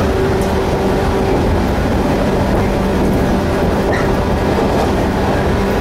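Running noise heard inside a Shinano Railway electric train at speed: a steady rumble of wheels on rail with a constant low hum.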